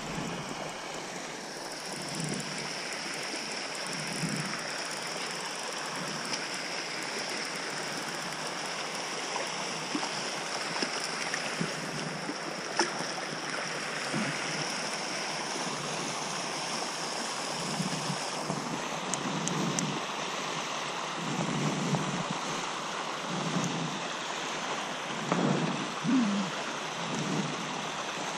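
Steady rush of water from a pump jet spraying across the pond surface, with a fish splashing in a landing net and scattered low knocks and bumps from handling, more of them near the end.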